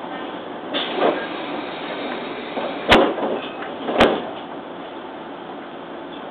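Tokyu 7600-series commuter train's sliding doors closing, shutting with two sharp thuds about a second apart, over a steady background of train noise.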